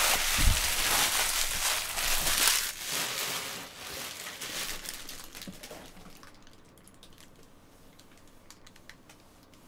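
Plastic trading-card pack wrappers crinkling as a hand gathers them, loudest for the first two or three seconds and dying away by about six seconds in.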